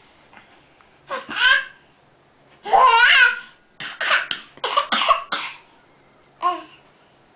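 Baby laughing in high-pitched squeals, in bursts: a long, loud one about three seconds in, then a quick run of short laughs and one last squeal near the end.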